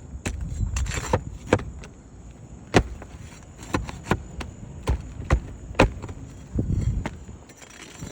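Irregular sharp knocks and taps, about a dozen, with low scraping and rumbling in between, as a damaged asphalt roof shingle and its nails are worked loose with hand tools.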